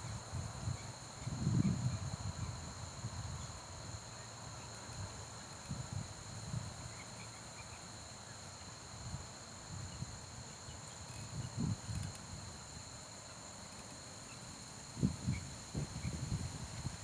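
Insects trilling steadily on two constant high pitches, crickets by their sound, under irregular low thumps and rumbles, strongest about a second and a half in and again near the end.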